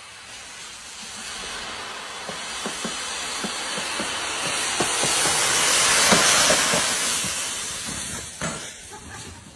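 A rushing hiss that swells to its loudest about six seconds in and then dies away, with faint ticks under it.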